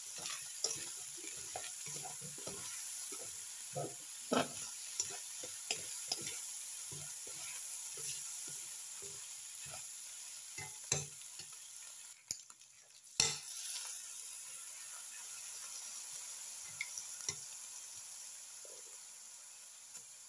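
Diced pork and onions sizzling as they sauté in a nonstick wok, with a spatula scraping and tapping against the pan in quick strokes. The stirring stops about two-thirds of the way through, and a steady sizzle carries on alone.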